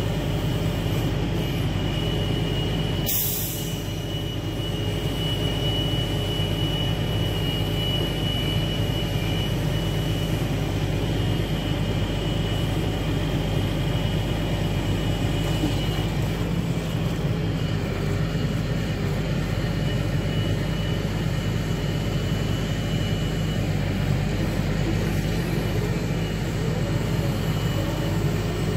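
Log truck's engine running steadily to drive its knuckleboom log loader's hydraulics, with a steady high whine over the engine drone. A short hiss about three seconds in.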